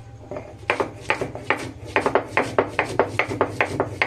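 Stone muller (nora) grinding dried red chillies and black peppercorns on a flat grinding stone (shil). The stone knocks and scrapes in quick rhythmic back-and-forth strokes, about four to five knocks a second.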